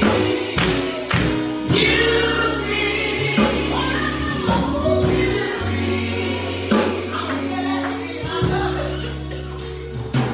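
Gospel music: a choir singing over an accompaniment with a steady beat and sustained bass notes.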